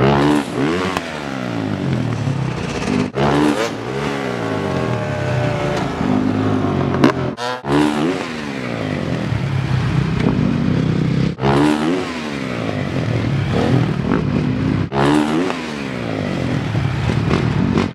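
Dirt bike engine revving hard, its pitch climbing and falling again and again, in several short runs broken by abrupt cuts.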